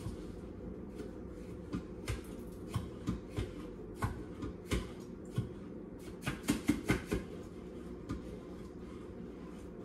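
Scattered light clicks and knocks of utensils and cookware being handled, with a quick run of them about six to seven seconds in, over a steady low hum.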